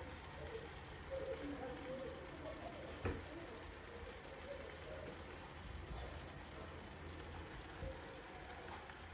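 Soft, steady sizzling and crackling from the food in a clay tajine heating on a gas burner, with one sharp tap about three seconds in.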